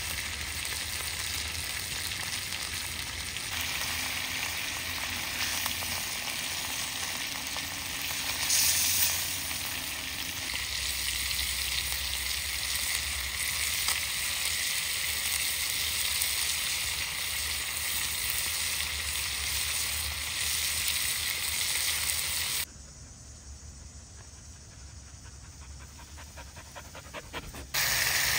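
Food frying, a steady sizzling hiss, briefly louder about nine seconds in and much quieter for about five seconds near the end before coming back.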